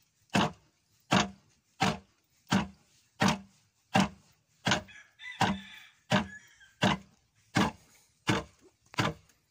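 Wooden foot-operated lever rice pounder (khok mong) pounding rice: the pestle beam drops into the mortar in a steady rhythm of heavy wooden knocks, about four every three seconds.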